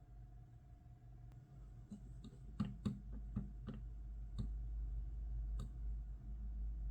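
A run of about a dozen short, light clicks and knocks, bunched between two and four and a half seconds in with a last one near six seconds, over a faint steady low hum.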